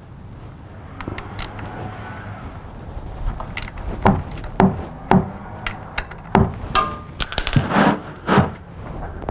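Metal hand tool working a Yamaha R3's 12 mm oil drain bolt loose: a series of sharp metallic knocks and clinks, irregular and about half a second apart, starting about four seconds in, with one brief metallic ring near the end.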